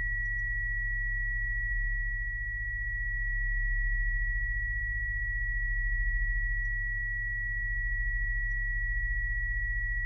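A steady, high-pitched pure tone, the ear-ringing sound of film sound design, held unbroken over a low droning hum that slowly swells and eases.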